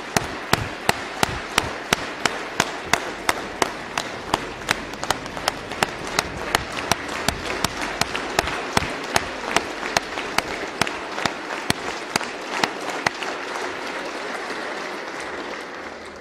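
Large audience applauding, with a sharp, even beat of clapping about two to three times a second over the general applause. Near the end the beat stops and the applause dies down.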